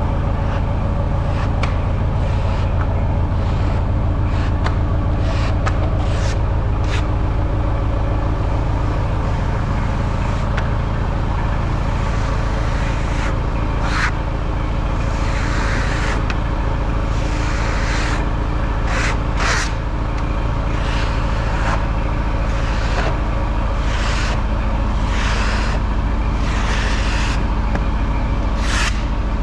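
Sawmill running at a steady engine drone while its blade saws through a hard maple log, with irregular short scraping hisses over the top.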